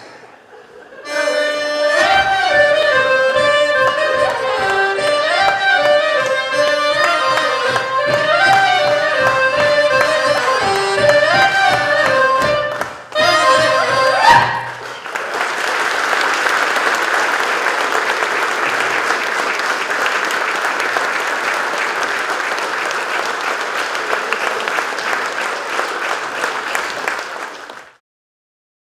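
A band with saxophone and accordions plays a final passage that ends about halfway through, followed by an audience applauding steadily until the sound cuts off just before the end.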